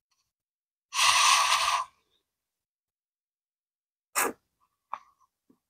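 A person slurping khanom jeen rice noodles in curry sauce: one loud slurp about a second in, lasting just under a second. About four seconds in comes a shorter, sharper mouth sound, and a faint click follows near five seconds.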